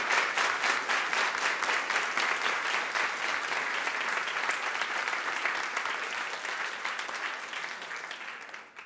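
An audience applauding, a dense crowd of clapping hands that slowly fades and dies away near the end.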